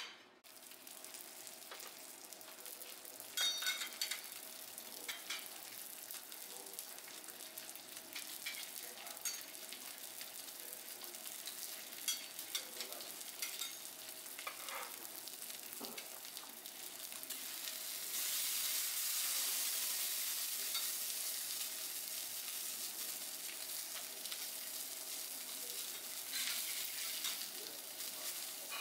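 Food sizzling on a teppanyaki iron griddle, a steady hiss that swells louder for a few seconds past the middle, with occasional sharp metal clinks of spatulas on the griddle.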